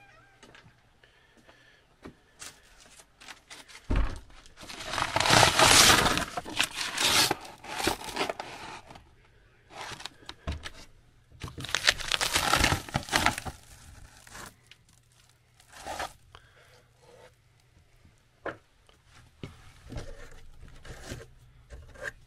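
Crackling, tearing and scraping as a hand pulls and rubs at old, brittle wood and debris around a basement door frame, loudest in two stretches partway through, with scattered small knocks and clicks between.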